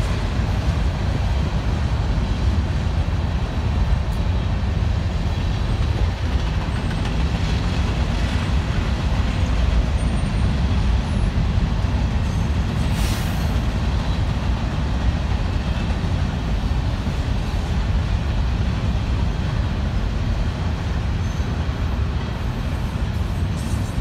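Freight train's cars rolling past at a distance: a steady low rumble, without a break.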